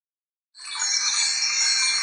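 Bright, shimmering chime sound effect that comes in suddenly about half a second in and holds steady.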